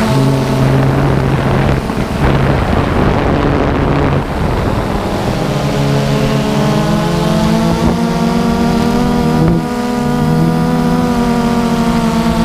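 DJI Phantom 2 quadcopter's motors and propellers whining steadily in flight, the tones shifting slowly in pitch as the motors change speed. Wind rushes over the microphone, heaviest from about two to five seconds in.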